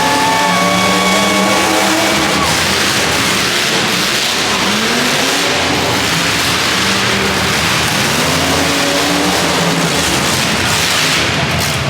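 Demolition derby cars' engines running and revving, with slow rises and falls in pitch over a dense roar of noise.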